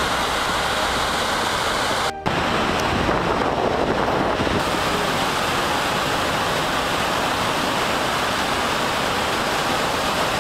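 Gullfoss waterfall's heavy flow plunging into its gorge: a steady, even rush of falling water, cut off for an instant about two seconds in.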